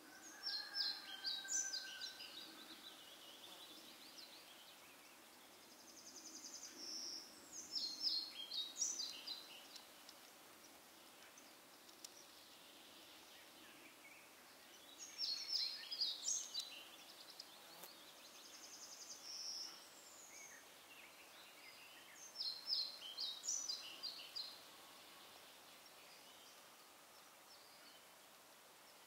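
A songbird singing short phrases of rapid high notes, four phrases about seven seconds apart, with a few softer whistled notes between them.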